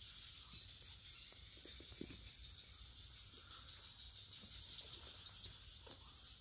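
Steady high-pitched chorus of forest insects, with a few faint ticks and rustles.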